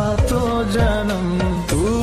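Bollywood-style song playing: a melody in long, gliding held notes over a regular drum beat.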